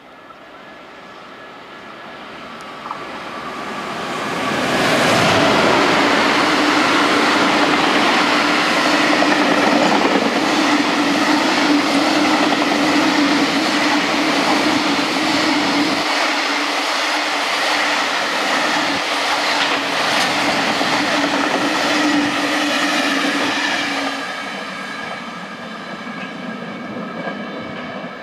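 JR Freight EF510 electric locomotive hauling a container freight train through a station without stopping. The sound builds as the train approaches and is loudest from about five seconds in as the locomotive passes. The long string of container wagons then rolls by with a steady hum and the clickety-clack of wheels over rail joints, dropping off about 24 seconds in as the last wagons pass.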